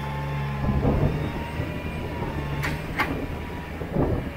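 Engine running steadily with a thin whine over it. A few dull knocks come about a second in and again near the end, with two sharp clicks just before three seconds.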